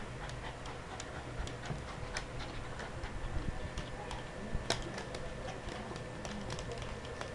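Two poodles play-wrestling on a hard floor: irregular clicking and scrabbling of claws on the floor, with one sharper click a little past halfway.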